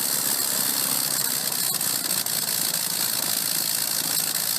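A steady running hum with a strong, even hiss over it, unchanging throughout.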